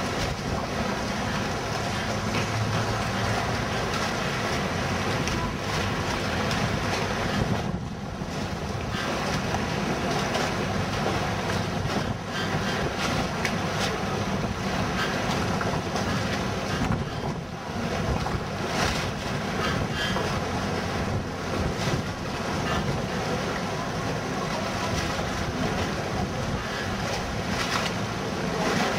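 Wind buffeting the microphone: a steady rumbling noise, dipping briefly twice.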